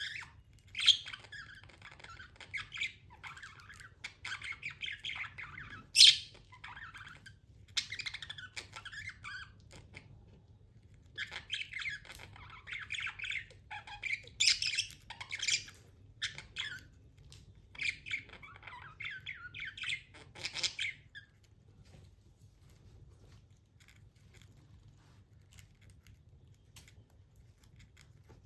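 Budgie chirping and chattering in repeated bursts, with one sharp, loud squawk about six seconds in. The chatter stops a little past twenty seconds in.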